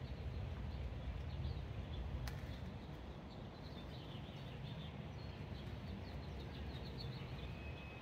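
Faint low rumble with small birds chirping in the background, the chirps quick and busiest in the second half. A single sharp click about two seconds in.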